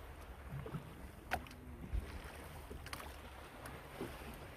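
Faint, steady low rumble of outdoor background, with a couple of soft clicks about one and two seconds in.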